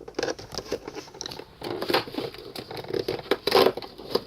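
Packaging of a LEGO advent calendar crinkling and crackling as it is opened by hand: the cardboard day door and the plastic parts bag. The crackles are quick and irregular.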